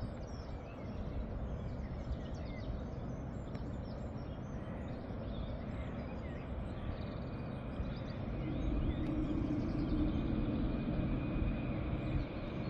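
Class 66 diesel locomotive approaching in the distance with a freight train: a low engine rumble that grows louder from about eight seconds in. Birds chirp faintly in the first half.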